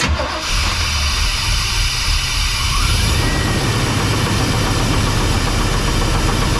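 1992 Chevy C1500's 350 small-block V8 with throttle-body injection starting at once and running at a steady idle. The new fuel pump and filter have cured its fuel delivery problem: it now idles in a way it would not before.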